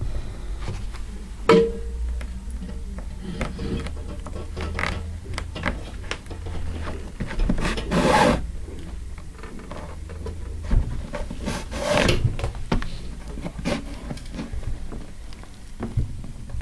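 Upholstery twine being pulled through a burlap-covered edge roll as it is stitched with a curved needle: short scratchy rasping pulls, the loudest about 8 and 12 seconds in, over a steady low hum.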